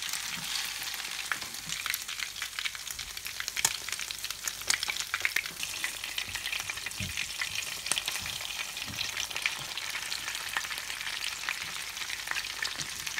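Fish patties frying in hot olive oil in a pan, a steady sizzle full of small crackling pops.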